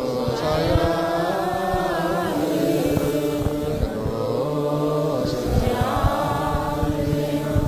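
Ethiopian Orthodox liturgical chant in Ge'ez, sung slowly in long held notes that drift and bend in pitch.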